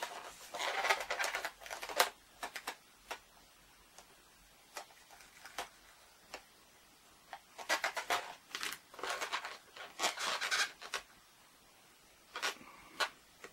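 Felt-tip marker drawing on an inflated latex balloon, with the balloons rubbing and creaking under the hands: scratchy rubbing in irregular bursts, the busiest about a second in and again from about eight to eleven seconds in, with small clicks between.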